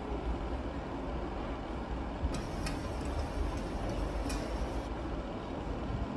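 A steady low rumble, with a few light sharp clicks between about two and five seconds in.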